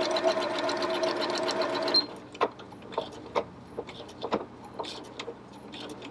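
Janome HD5050 heavy-duty sewing machine stitching through a thick stack of denim, about nine layers, with a steady motor whine and rapid needle strokes. It stops abruptly about two seconds in, followed by a few scattered light clicks.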